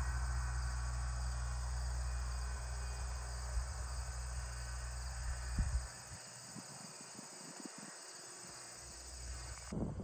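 Crickets chirping in a steady, high-pitched chorus. A low rumble lies under it and drops away about six seconds in.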